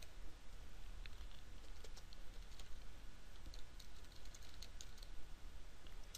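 Typing on a computer keyboard: a quick, irregular run of faint keystroke clicks.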